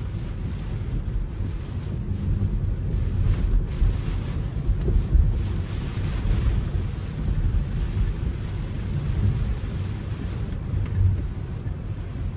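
Steady low rumble of a Tesla Model 3's tyres on a flooded, rain-soaked road, with rain noise, heard from inside the car's cabin.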